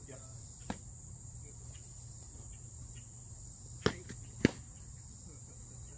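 Two sharp knocks about half a second apart, a little past the middle, as foam-padded sparring swords strike, with a fainter click earlier. Steady high insect chirring runs underneath.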